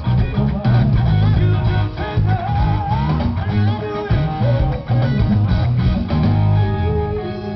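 Rock band playing live through a stage PA, heard from within the crowd: electric guitars over bass and drums.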